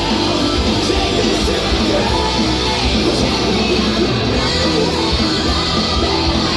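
Loud heavy rock music with electric guitar and vocals, playing steadily.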